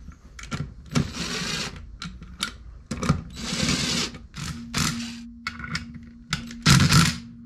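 Hand tools and metal clutch parts clicking and clinking during clutch assembly, with two short bursts of rasping mechanical noise and a louder one near the end. A faint steady hum comes in about halfway through.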